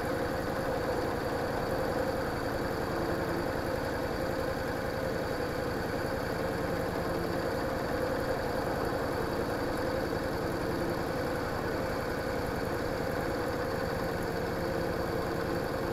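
Yamaha DragStar Classic's V-twin engine idling steadily while the bike stands still.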